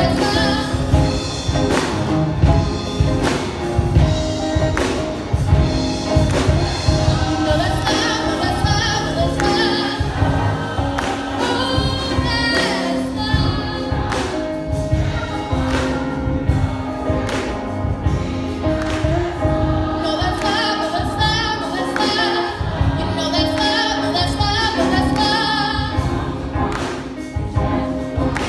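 Gospel choir singing in harmony over music with a steady beat.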